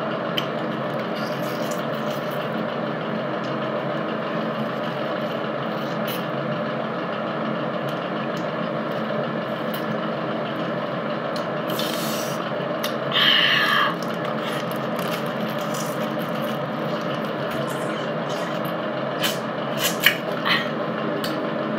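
Steady, even rushing background noise with faint steady tones in it, broken by a few faint clicks and rustles and a short louder sound about 13 seconds in.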